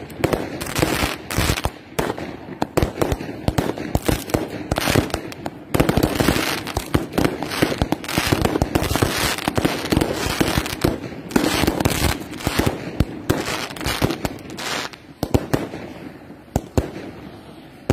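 Fireworks going off in a rapid, dense string of sharp cracks and bangs, thinning out and quieter over the last few seconds.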